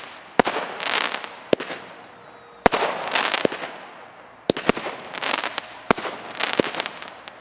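Xplode Sunburn 49-shot consumer firework battery firing shot after shot: about six sharp launch bangs one to two seconds apart, each followed by a short burst of crackling as the shell breaks into sparks in the air.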